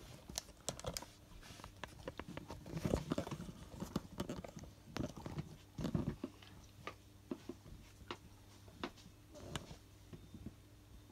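Handling noise: irregular small clicks and rustles, with louder bumps about three and six seconds in, from a phone camera and a rubber shark hand puppet being moved about close to the microphone.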